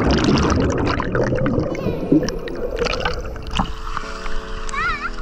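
Muffled rush and gurgle of churning water and bubbles heard with the microphone underwater just after a jump into a pool, lasting about three seconds. Near the end the camera surfaces into splashing, and steady sustained music tones come in.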